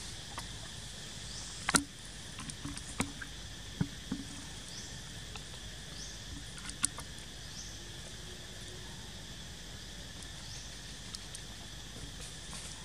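Insects buzzing steadily in a high, even drone, with a short rising chirp repeating every second or two. A few sharp clicks and crackles come in the first half.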